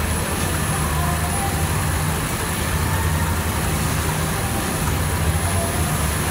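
Book-binding line machinery running: a steady, continuous low hum with an even mechanical whirr over it.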